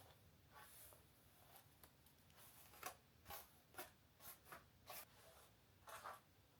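Faint, scattered scratching and clicking sounds, about a dozen short strokes, most of them from about three seconds in to near the end.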